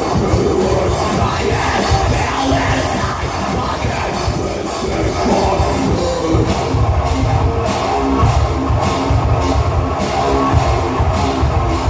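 A live rock band playing loud, dense music with drums. From about halfway through, cymbal hits come in a steady beat.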